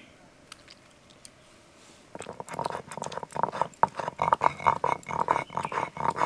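Stone roller grinding boiled tomatoes on a grooved stone slab (sil-nora), starting about two seconds in as a quick, rhythmic back-and-forth grinding, several strokes a second.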